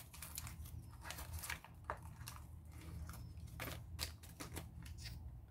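Small plastic toy packaging handled in the hands: faint crinkling with scattered small clicks.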